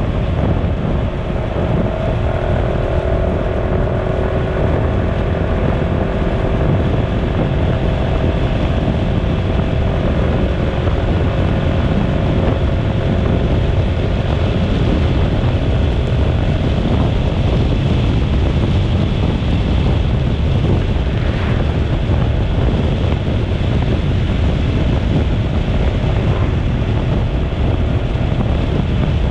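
Wind buffeting the microphone of a moving road vehicle's camera, over steady road and motor noise. A faint hum slowly drops in pitch over the first ten seconds or so.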